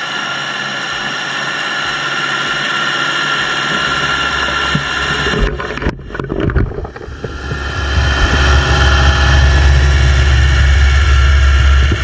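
East Wind YCT356S-S mini crawler dozer working under load, its engine running with a steady high whine as it pushes soil with its blade. The sound turns uneven around the middle, then becomes louder and deeper from about eight seconds in.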